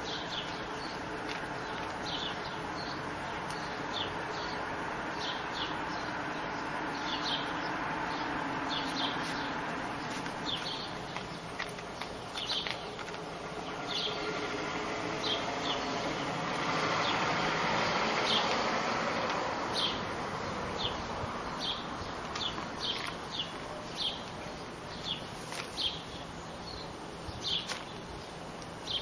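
Small birds chirping in short, high, scattered calls over a steady rushing background noise that swells for a few seconds midway.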